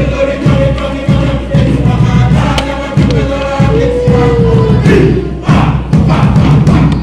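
Group singing of a Cook Islands kaparima (action song), many voices over a steady drum beat about twice a second. One long held note sounds near the middle.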